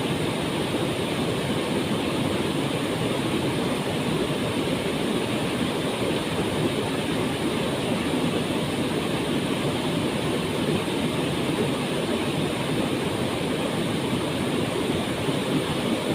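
Waterfall roaring steadily: an even, constant rush of falling water, strongest in the low-middle range.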